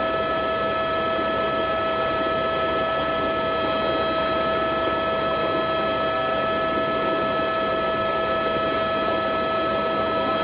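Steady machine noise with a constant high whine over a rushing drone, unchanging throughout, like the cabin noise of a helicopter.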